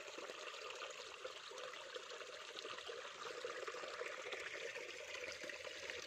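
Water from a small hill spring trickling and running steadily, a little louder in the last couple of seconds.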